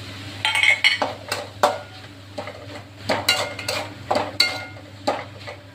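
Steel spoon scraping and knocking against a metal kadai while a dry flat-bean and grated-coconut stir-fry is stirred, in quick irregular strokes about two a second.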